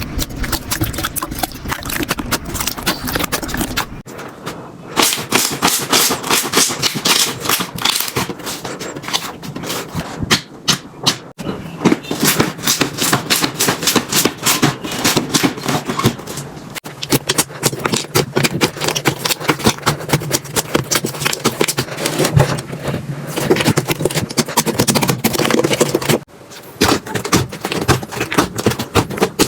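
Slime being pressed, squeezed and stretched by hand, giving dense, rapid crackling and popping clicks. The sound changes abruptly about four seconds in and again near the end, as one slime clip gives way to the next.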